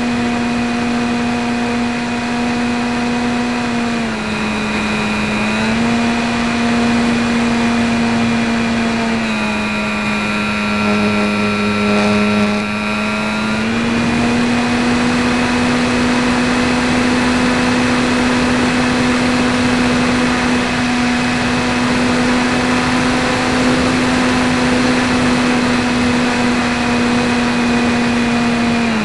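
E-flite 450 brushless electric motor (860 kV) spinning a 10x5 propeller, heard from on board the plane: a steady buzzing drone over a rush of passing air. The pitch dips briefly about four seconds in, then lower again for several seconds around the middle, as the throttle is eased back, before settling steady.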